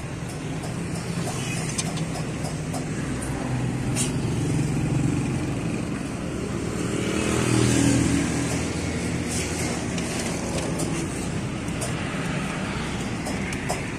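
Motor vehicle engines in passing road traffic: a steady low hum that swells to its loudest about eight seconds in as a vehicle goes by close, then settles back. A few light clicks and knocks sound over it.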